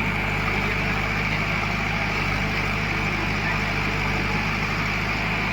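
Heavy diesel engine running steadily at an even, low speed, with no revving or change.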